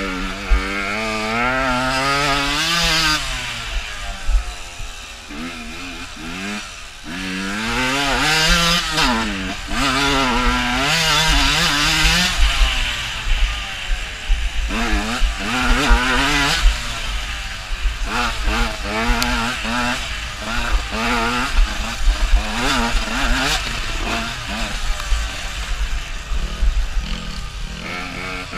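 Dirt bike engine heard from the rider's onboard camera, revving up and dropping back again and again as it accelerates, shifts and slows along a rough forest track, with wind rumble on the microphone. The rider says the bike ran strangely throughout the race.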